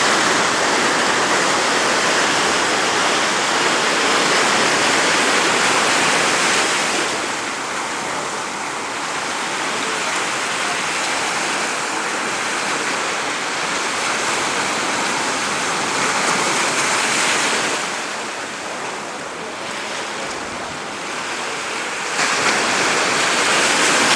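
Sea surf: waves breaking and washing over the shallows in a steady rush that swells and ebbs, loudest in the first few seconds and again near the end.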